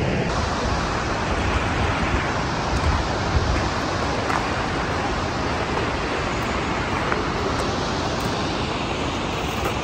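Steady rushing of water from a mountain stream and waterfalls.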